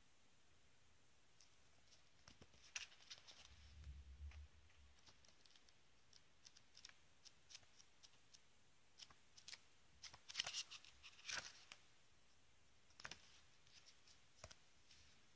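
Faint handling noise of a paperback book: scattered soft clicks and paper rustles as it is held, opened and its pages turned, with two louder rustles a little past the middle.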